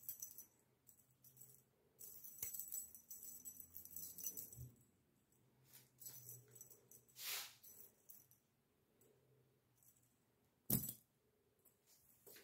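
A metal key ring and chain jingling in bursts of light clinks as kittens bat at the dangled keys. A single short thump comes near the end.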